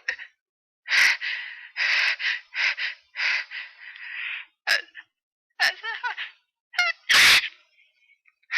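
A person's allergic sneeze build-up: a string of gasping, catching breaths with a few short voiced 'ah' sounds, then one loud sneeze about seven seconds in. The sneezing is from a cat allergy.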